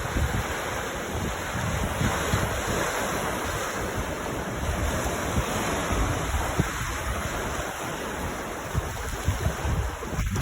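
Waves washing onto a beach, a steady rush, with wind buffeting the microphone in irregular low rumbles.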